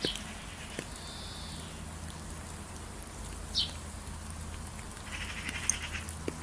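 Birds calling over a steady low background hum: short, sharp falling chirps about three and a half seconds apart, a brief whistle, and a buzzy rapid trill near the end.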